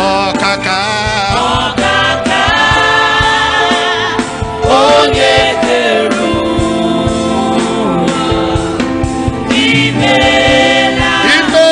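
Gospel worship music: a choir singing with instrumental backing, loud and continuous.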